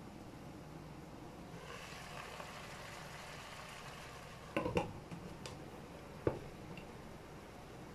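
Glass pot lid lifted off a pan of simmering vegetables, with a soft hiss while it is up, then clinking against the metal rim of the pan: a quick cluster of knocks about halfway through and one sharp clink a little later.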